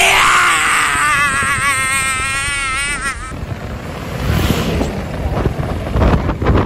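A man's loud, drawn-out laugh with a wavering pitch for about three seconds, then a sudden cut to a motorcycle ride: wind buffeting the microphone over engine and road noise.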